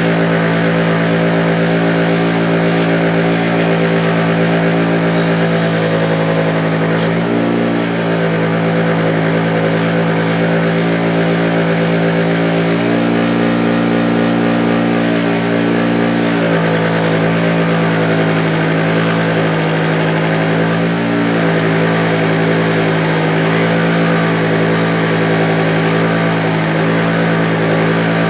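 Bench grinder or buffer motor running steadily with a 2000 grit wheel while pliers are worked against it. Its hum sags in pitch briefly a few times, as the work loads the wheel.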